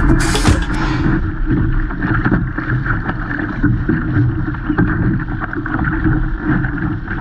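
Wind buffeting the microphone over the rush and splash of water along an ILCA (Laser) dinghy's hull as it sails through chop.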